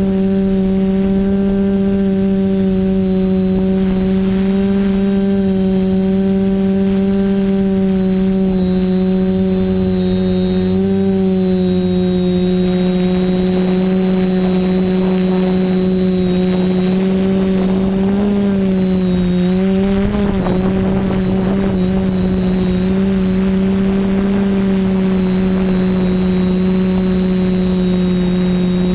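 TBS Discovery quadcopter's Sunnysky 2216 800kv brushless motors spinning 10x5 propellers in flight: a loud, steady hum with a thin high whine. The pitch wavers briefly about two-thirds of the way through as the throttle changes.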